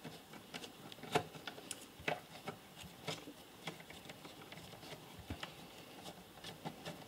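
Faint, irregular clicks and scrapes of a hand screwdriver turning in a screw recessed in a battery charger's plastic housing, with hands shifting the case; the screws are stubborn and hard to get out.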